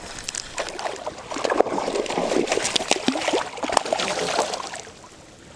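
Water splashing and sloshing in quick irregular spatters, growing about a second in and dying down near the end.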